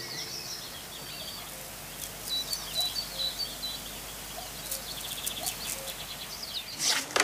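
Outdoor ambience with birds chirping: a quick run of short high chirps around the middle and a few fainter, lower calls over a steady light hiss. A brief burst of noise comes just before the end.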